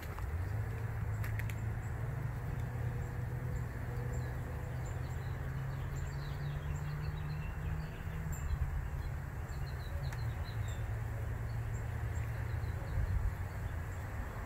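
Outdoor ambience: a steady low rumble with faint, high bird chirps from about four to eleven seconds in.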